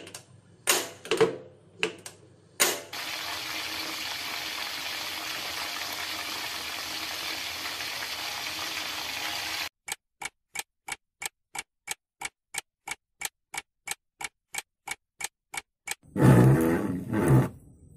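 Cooking sound effects for instant noodles: a few knocks and clatters, then a steady hiss for about seven seconds, then clock-like ticking at about three ticks a second that stops near the end, followed by a brief louder sound.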